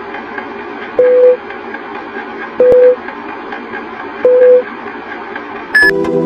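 Film-leader countdown sound effect: a steady projector-style whir with faint regular ticking. A short beep sounds on each number, three beeps about a second and a half apart. Near the end a sudden bright hit with ringing tones closes the countdown.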